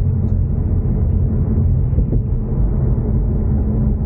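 Ford Mustang EcoBoost's turbocharged four-cylinder cruising on the road: a steady low rumble of engine and road noise.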